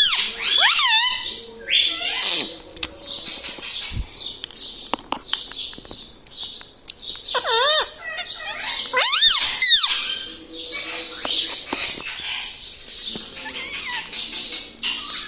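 Pet parrot calling: a run of harsh, high screeches and chatter, broken by warbling whistles that swoop up and down near the start, about halfway through and again a second or so later.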